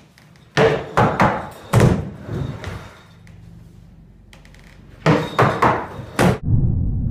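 Skateboard deck and wheels knocking and clattering on a plywood mini ramp in two clusters of sharp hits, the first about half a second in and the second about five seconds in, as the board comes off the ledge and lands. Then the low rumble of the urethane wheels rolling on the plywood.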